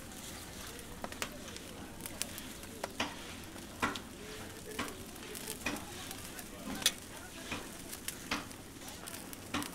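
A long wooden stick stirring a large pot of boiling pap (maize porridge) over a wood fire: irregular sharp clicks and pops, about one or two a second, over a steady hiss.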